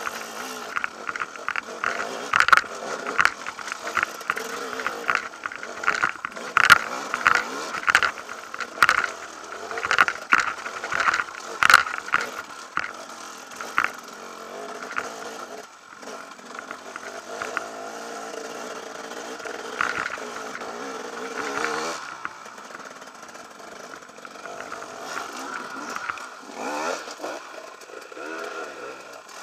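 Husaberg TE 300 two-stroke enduro motorcycle ridden hard up a rocky trail, its engine revving up and down, with many sharp knocks and clatters as the bike hits rocks during the first half. After that it runs more steadily, with rising revs near the end.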